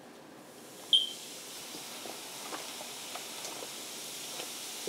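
Baking soda poured into diluted apple cider vinegar in a stainless steel bowl, the mixture fizzing with a hiss that grows louder as the foam rises, with faint scattered ticks. A short sharp tick about a second in.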